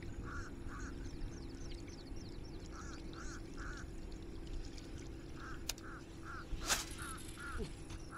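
Ducks quacking in short runs of two or three calls, with small birds chirping faintly higher up and a steady low hum underneath. A short sharp sound stands out about two-thirds of the way through, with a fainter one a second before it.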